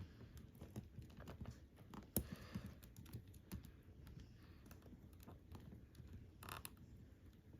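Faint, irregular clicks and taps of a plastic Godzilla toy figure being handled as its plastic atomic-breath piece is pushed into its mouth, with one sharper click about two seconds in and a short flurry of clicks near the end.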